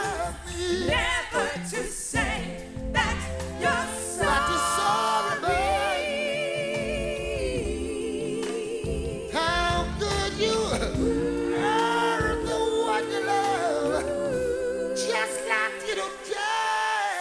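A song performed with sung vocals holding long, wavering notes over a bass line. The music stops right at the end.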